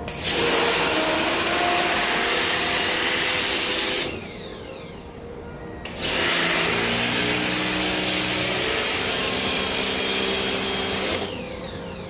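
Zinsano electric power washer spraying a jet of water onto an air conditioner's evaporator coil: a loud hissing spray over the pump motor's hum in two long bursts, stopping for about two seconds in the middle and again near the end.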